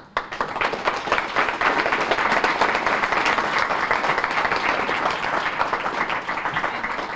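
Audience applauding: many hands clapping in a dense, even patter that starts at once and begins to die away near the end.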